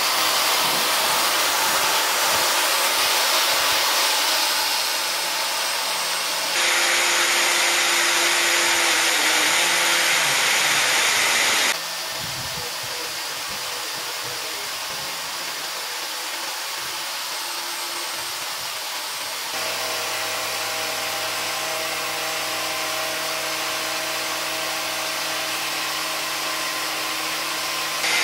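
Angle grinder running with a folded-paper cutting disc, grinding into a coconut's hard shell: a steady rushing whine that jumps abruptly in level a few times. A steady motor hum shows through in the last part.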